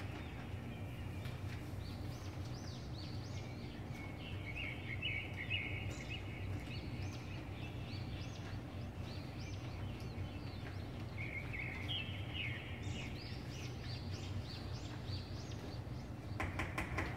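A mixing utensil squeaking and scraping against a clear mixing bowl as cake batter is stirred by hand: runs of short, high squeaks with pauses between them, over a steady low hum. A few sharp knocks near the end.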